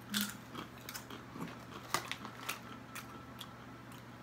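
Plantain chips being bitten and chewed: a string of short, quiet crunches at irregular intervals.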